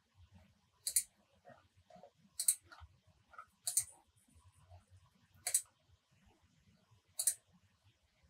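Computer mouse clicking: five separate clicks spaced a second or two apart, some heard as quick pairs.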